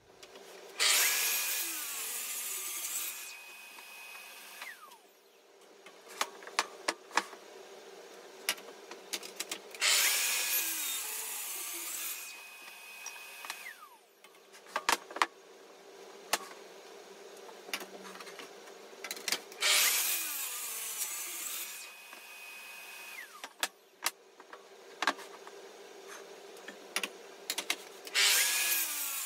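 Festool power saw making four short cuts through walnut, each one spinning up, cutting for about two seconds and winding down with a falling whine. A dust extractor hums steadily throughout, with clicks and knocks of handling between the cuts.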